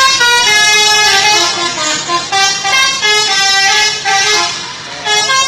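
Bus telolet horn, a multi-tone musical air horn, playing a tune: a run of held notes stepping up and down in pitch, with short dips between phrases.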